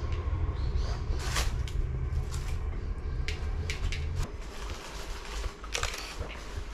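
Footsteps and handling knocks, a scattered series of sharp clicks, over a low rumble that cuts off about four seconds in.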